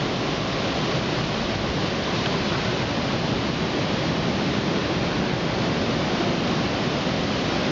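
Hurricane wind blowing hard and steadily: a dense, even rush of noise with no let-up.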